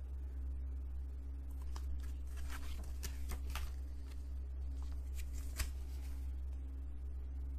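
Pages of a thick paper booklet being turned and handled: a few short rustles and flicks about two to four seconds in, and one sharper flick a little past halfway. A steady low hum runs underneath.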